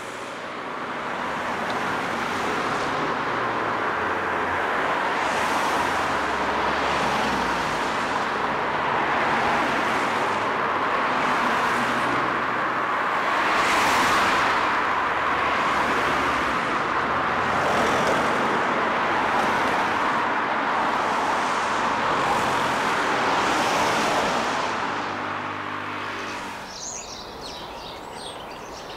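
Dense road traffic noise, cars passing in a continuous stream that swells and eases every second or two. Near the end the traffic noise drops and birds chirp.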